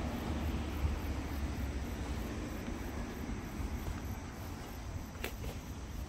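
Steady low rumble of road traffic, with one sharp click about five seconds in.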